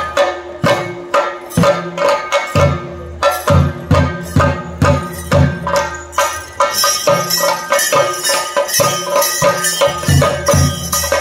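Theyyam drumming: chenda drums beaten in a fast, driving rhythm with clashing cymbals over a steady held note. The cymbals grow louder from about two-thirds of the way in.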